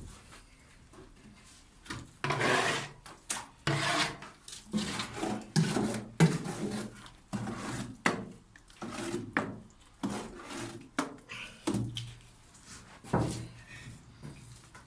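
A hand tool scraping through plaster in irregular strokes, starting about two seconds in.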